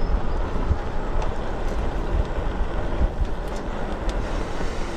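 Wind buffeting the microphone of a camera on a moving electric bike, a loud, uneven rumble with the rolling noise of the ride beneath it.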